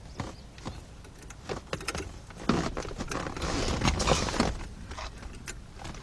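Small clicks and rubbing as a horn-pad ring is handled and pressed into the steering wheel hub, with a louder scraping, rustling stretch about two and a half seconds in that lasts about two seconds.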